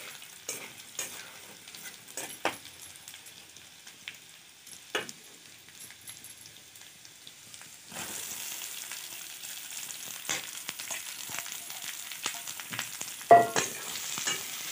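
Garlic and chilli frying quietly in oil in a kadhai, with a spatula scraping and tapping the pan. About eight seconds in, sliced onions are tipped into the hot oil and the sizzle jumps louder and stays up; a loud metal clank comes near the end.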